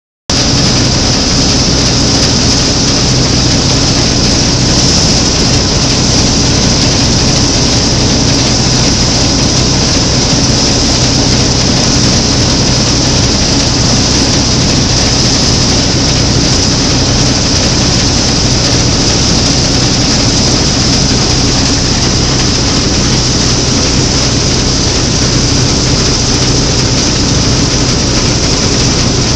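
Claas Matador Standard combine harvester running steadily under load while cutting and threshing triticale, heard from the open driver's platform. It is a continuous engine drone with a steady high hiss over it.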